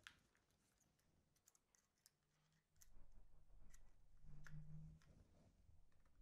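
Faint clicks from a plastic-bodied electric hot knife being handled, with a low rumble of handling noise through the middle; otherwise near silence.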